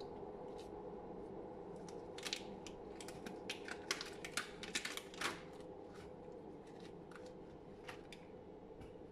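A wet black rubber glove being peeled off a latex-gloved hand: a quick flurry of sharp rubber snaps and clicks about two to five and a half seconds in, over a steady low hum.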